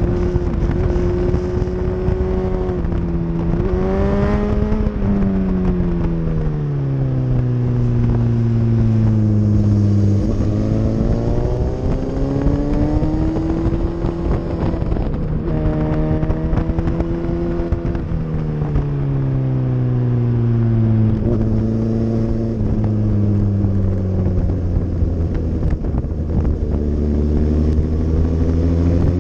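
Sport motorcycle engine at speed on track, its pitch climbing under throttle and sinking as it slows, with sudden jumps at gear changes, over wind buffeting on the microphone.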